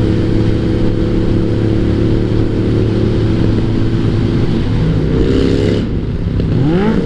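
Motorcycle engine running steadily at cruising speed under a heavy rush of wind noise. About five seconds in, the engine note drops as the throttle is eased for a gear change, then climbs again as the bike accelerates.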